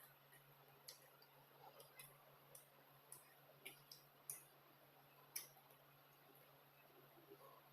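Near silence with faint, scattered small clicks and smacks of someone eating: chewing and fingers or food against a plate, the two sharpest clicks about four and five seconds in.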